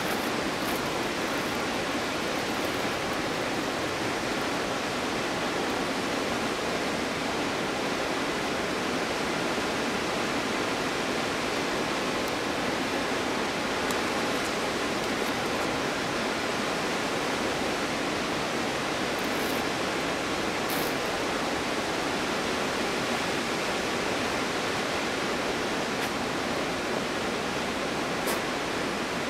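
Waterfall in winter: water plunging and splashing in a steady, unbroken rush with little deep bass, and a few faint high ticks from spray or ice.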